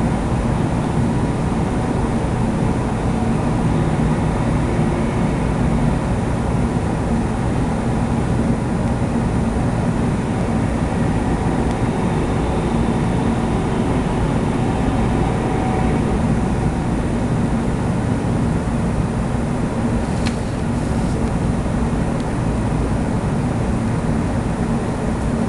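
Lawnmower engine running steadily.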